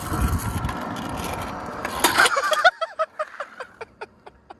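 Stunt scooter wheels rolling on asphalt, then a crash about two seconds in as the rider falls and the scooter clatters away, with a short vocal cry from the rider. A few scattered light clicks follow.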